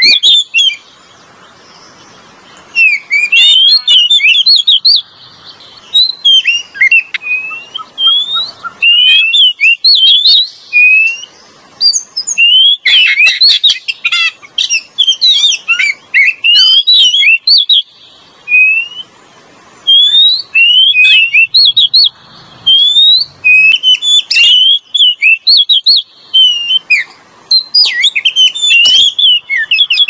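Oriental magpie-robin song used as a bird-lure call: loud, varied whistles and sharp chirps, rising and falling, delivered in rapid bursts of a second or more with short pauses between.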